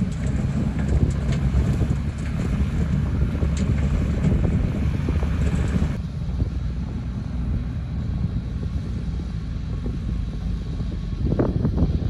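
Low, steady diesel rumble of a loaded Daewoo dump truck driving away on a dirt road, mixed with wind buffeting the microphone. The higher hiss thins out about halfway through, and a few short knocks come near the end.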